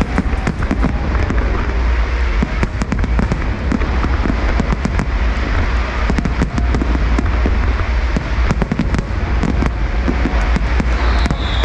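Aerial fireworks bursting in quick succession: a constant deep rumble of explosions, with many sharp bangs and crackles throughout.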